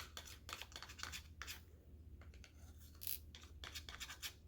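Clear glue being scraped out of a measuring cup into a bowl: faint, irregular scraping strokes.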